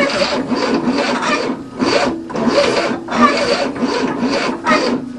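Starter motor cranking the 1967 Cadillac's V8, turning it over in a rasping, rhythmic churn without it catching: the engine is flooded, with the choke held open.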